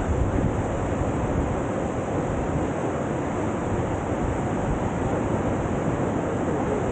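Steady rush of whitewater from a standing river surf wave, an even roar of water with no breaks.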